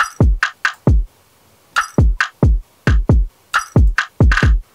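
A programmed hip-hop drum loop playing through a compressor set with a delayed attack so the transients come through. Punchy kick drums with falling-pitch tails and snappy higher hits come in quick clusters, with a brief pause about a second in.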